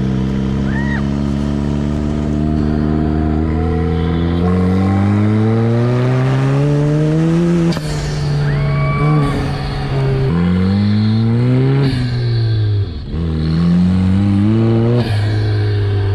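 Home-built off-road buggy's engine pulling hard under acceleration. The engine note climbs steadily, then drops and climbs again several times.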